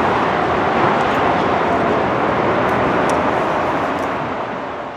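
Jet airliner's engines as it climbs away in flight: a steady rushing jet noise that fades near the end.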